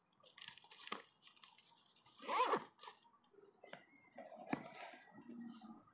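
Small knife slicing cherry tomatoes on a plastic plate: faint soft cuts and light clicks of the blade against the plate, with one brief louder sound about two seconds in.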